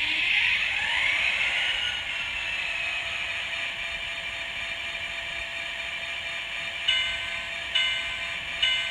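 N scale SD40-2 sound decoder playing diesel locomotive sound through its tiny speaker. The engine sound climbs in pitch over the first two seconds, then runs steady, and from about seven seconds in a short ringing tone repeats about once a second, like a locomotive bell.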